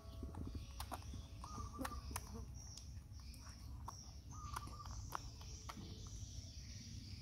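A baby macaque chewing grapes, with scattered soft clicks and mouth sounds. A short faint chirp repeats about every three seconds.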